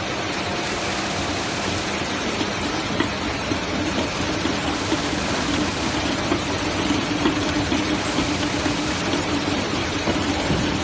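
Water bottling line running: a steady mechanical hum and whir from the bottle conveyor and filling machine, with scattered small clicks as plastic bottles move through.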